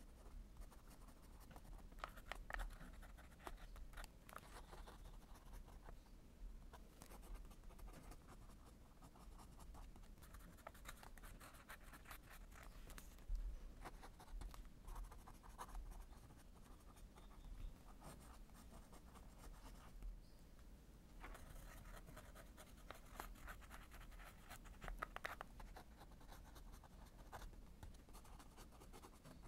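Lamy fountain pen nib scratching faintly on journal paper as handwriting is written, in runs of short strokes with brief pauses between words.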